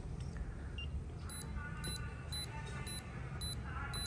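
Fingertip pulse oximeter beeping in time with the pulse: short high beeps start about a second in and come roughly every 0.6 seconds. The rate marks a fast pulse of over 100 beats a minute.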